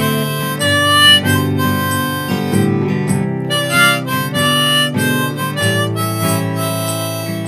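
Harmonica played from a neck rack over a strummed steel-string acoustic guitar, one player. The harmonica carries the melody in held notes that change every second or so.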